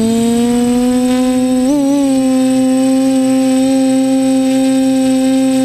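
TBS Discovery quadcopter's brushless motors and propellers humming at a steady pitch, heard loud and close from the camera on its frame. The motors speed up briefly about a second and a half in, the pitch jumping and settling a little higher.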